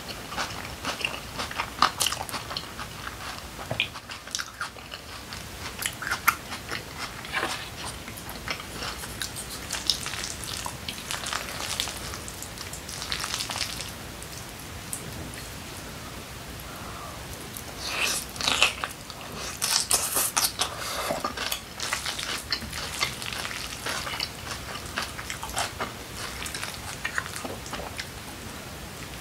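A person chewing food close to the microphone, many short wet clicks and crackles, with chopsticks stirring bibimbap in a glass bowl. The denser clusters come about two-thirds of the way through.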